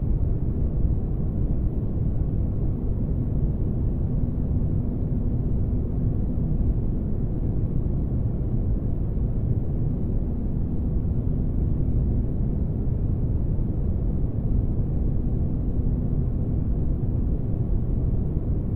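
Spaceship-interior ambience: a steady low rumbling noise with a faint hum held over it, unchanging throughout.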